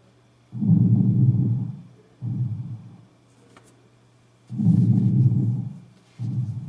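Lung breath sounds recorded through a stethoscope over the back of the chest: slightly slowed breathing. Two breath cycles are heard, each a longer, louder inhalation followed by a shorter exhalation and a pause.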